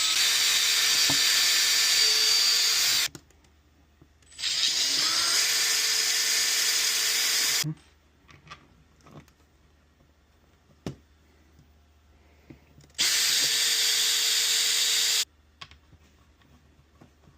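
Power drill running in three bursts of a few seconds each, spinning up at the start of each, with light knocks and clicks between the bursts.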